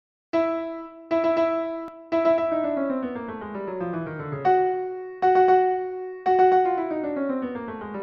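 Background music on electric piano: a short phrase of struck chords, each phrase ending in a falling run of notes, played twice.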